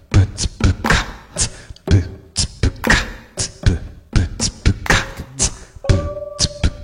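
A steady percussive beat of low kick-like thumps about once a second, with sharper snare- and hi-hat-like hits between them, in the manner of beatboxing. A held pitched tone joins in near the end.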